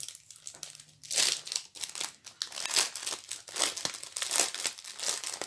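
Plastic packaging crinkling and crackling as a bag of round diamond-painting drills is opened and handled, in irregular rustles that grow louder about a second in.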